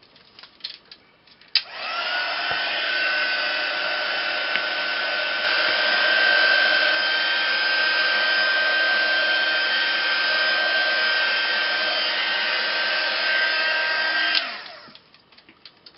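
Craft heat gun clicked on after a second or two: its fan whine rises and settles into a steady blow while it dries wet gesso. Near the end it is clicked off and the whine falls away.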